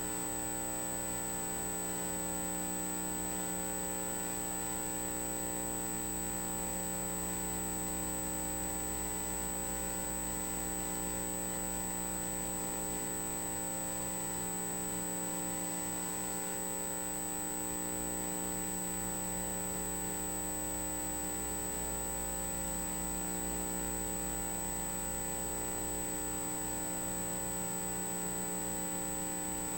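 Steady electrical hum from electronic equipment, with many fixed tones and a high-pitched whine above them, unchanging throughout with no rhythmic beat.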